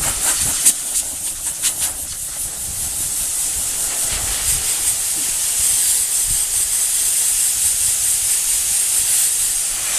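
Compressed air hissing from a blow nozzle on an air hose as it blows loose fur out of a dog's coat, with a few short spurts in the first couple of seconds, then a steady hiss.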